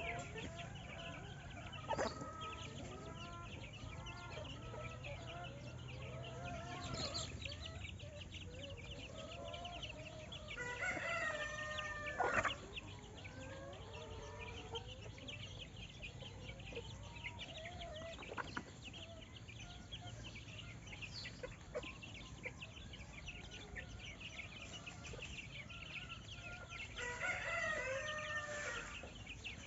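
Chickens clucking, with a rooster crowing twice, once about a third of the way in and again near the end. A few sharp clicks are heard among the calls.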